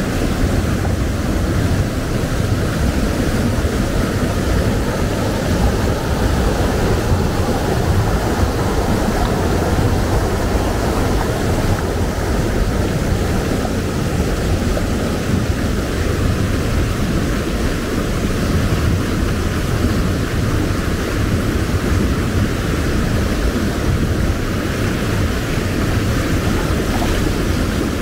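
Mountain river rushing over boulders in a small rapid: a deep, steady rush of white water close to the microphone.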